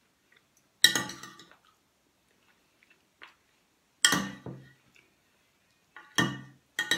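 Metal spoon and fork clinking against a white dinner plate while eating. Four sharp clinks with a brief ring: about a second in, about four seconds in, and two close together near the end.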